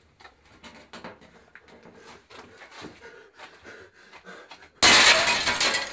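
A run of small knocks, scuffs and rustles, then about five seconds in a sudden loud crash that lasts about a second.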